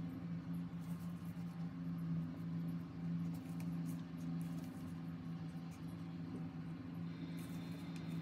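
A steady low hum, like a fan or appliance running, with faint scraping clicks of a popsicle stick stirring epoxy resin in a plastic cup.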